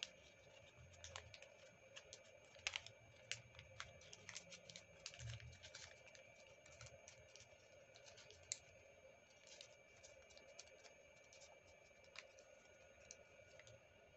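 Origami paper crinkling and crackling as it is folded and creased by hand: faint, irregular clicks, thickest about three to six seconds in, over a faint steady hum.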